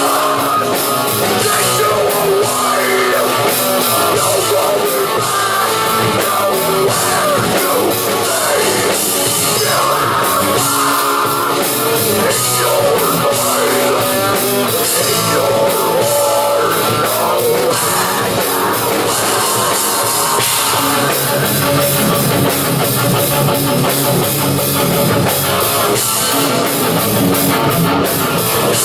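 Live hard-rock band playing loud, with electric guitar over a drum kit.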